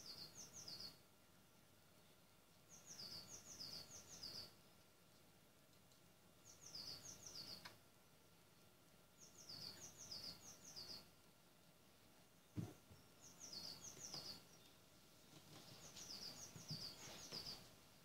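A small songbird singing faintly in the trees, repeating the same short phrase of four or five quick, high, downward-sliding notes every three or four seconds. One sharp click about two-thirds of the way through.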